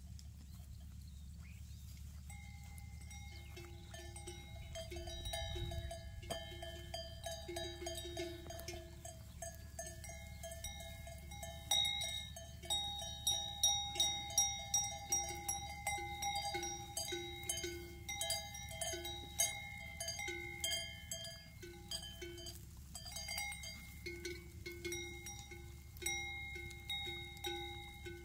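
Neck bells on a herd of grazing goats, ringing and clanking unevenly as the animals move. The ringing starts about two seconds in and grows louder and busier about halfway through.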